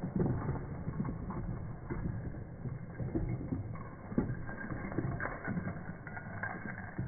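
Footsteps on a wooden plank boardwalk: irregular soft knocks and creaks from the boards.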